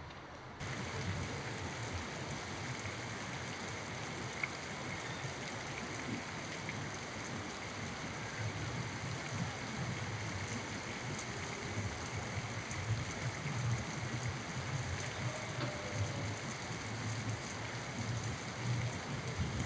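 Steady outdoor ambience: an even, continuous rushing noise with a faint low rumble underneath, starting about half a second in.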